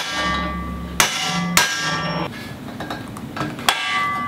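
Four sharp metal-on-metal blows on a rusty steel shovel socket held in a bench vise, each one ringing on afterwards, as the cracked socket is knocked together to close the tear. Two blows come close together about a second in, and the last comes near the end.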